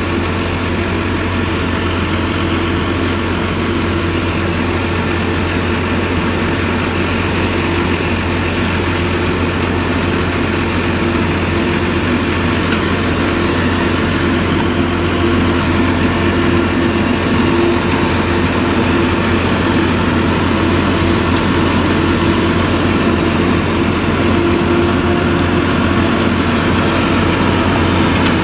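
Claas Jaguar 970 forage harvester with its MAN V8 engine running steadily under load while chopping maize, together with the tractor pulling the chopper trailer alongside. A steady hum runs through the roar, which grows a little louder over the second half as the machines draw nearer.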